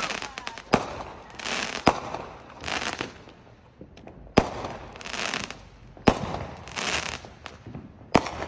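Aerial fireworks bursting: about five sharp bangs one to two seconds apart, each followed by a short crackling hiss.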